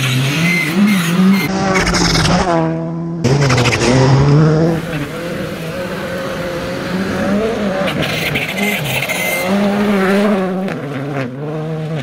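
Škoda Fabia R5 rally cars at full throttle on gravel, their turbocharged four-cylinder engines revving up and down through quick gear changes as they pass. The sound cuts abruptly to another pass about three seconds in.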